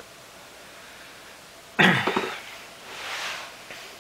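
A man coughs once, sudden and loud, close to the microphone about two seconds in, followed by a softer hiss about a second later.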